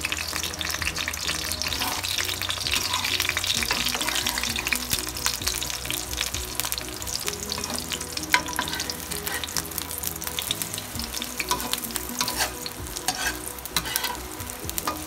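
Beaten eggs sizzling in hot olive oil in a wok while a metal spatula scrapes and taps against the pan as the eggs are scrambled. There is a steady hiss with scattered clicks of the spatula, and one sharper knock about eight seconds in.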